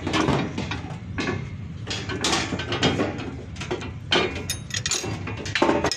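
Irregular metal knocks and rattles of a wire fan guard (screen) being handled and fitted over a generator radiator's fan.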